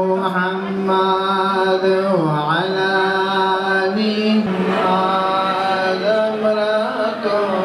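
A man chanting an Islamic religious recitation into a microphone over a PA system, holding long drawn-out notes. The pitch dips briefly about two seconds in, and a new held phrase begins around four and a half seconds in.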